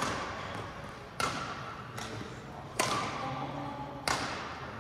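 Badminton rackets striking a shuttlecock in a rally: four sharp hits about a second and a half apart, each ringing on in the echo of a large gym hall.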